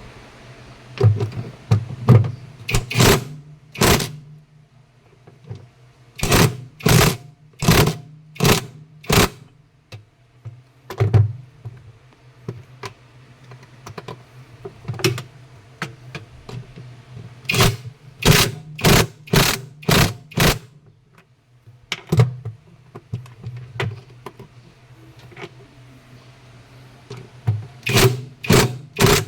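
Sharp metallic knocks and clanks in quick clusters of two to five, with a low hum coming and going between them: hands-on repair work on a washing machine.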